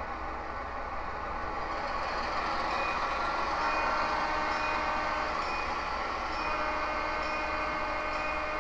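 HO scale model train running: a steady locomotive sound with a few faint held tones over it, growing a little louder about two seconds in.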